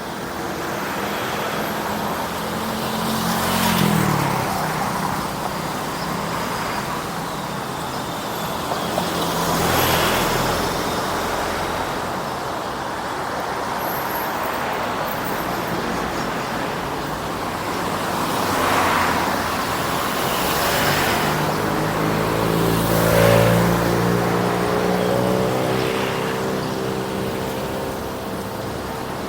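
Road traffic, with vehicles passing close by one after another; each swells and fades, about six in all. An engine's hum is clearest a little past two-thirds of the way through.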